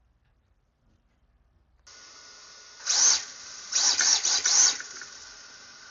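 The electric motor of an RC drift car, switched on with a steady faint whine and hiss about two seconds in, then revved in short bursts: one brief burst, then a cluster of three or four a second later.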